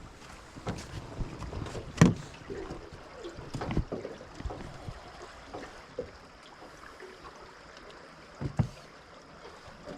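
Scattered knocks and thumps of handling on a boat, the loudest about two seconds in and another pair near the end, over a steady wash of water and wind.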